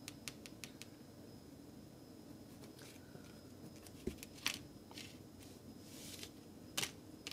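Faint handling of tarot cards: a few small ticks, a soft thump about four seconds in, and several short swishes of cards sliding.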